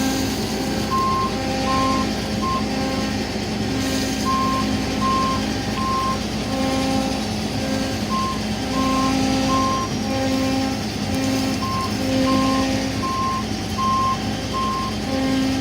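John Deere 9770 combine running, with an electronic backup alarm sounding repeated beeps of uneven length over the steady engine hum as the machine reverses.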